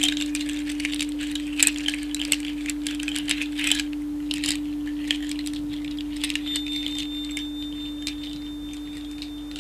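A crystal singing bowl ringing on with one steady, pure low tone that slowly fades. Over it comes light, irregular rattling and clicking, busiest in the first half, with a faint high ringing tone joining about two-thirds of the way in.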